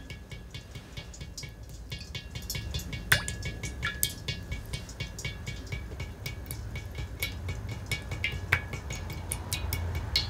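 Water dripping into a stainless steel bowl: a quick, irregular patter of drops, with a few louder ringing plinks about three seconds in and again near eight and a half seconds, over a low steady hum.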